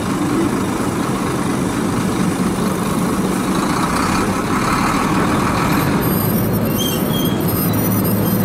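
Diesel engine of a Sinotruk HOWO three-axle dump truck running steadily while its raised tipper body is lowered after dumping sand.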